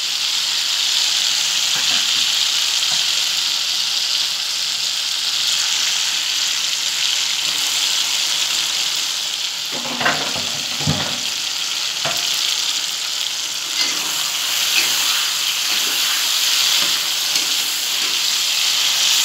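Hot oil sizzling steadily in a metal wok as diced food fries with tomato and chilli, with occasional short knocks of stirring and a heavier clatter about ten seconds in.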